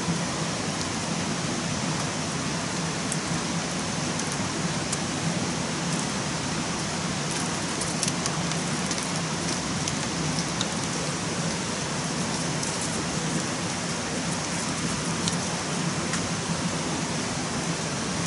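Steady rain-like hiss with scattered faint clicks.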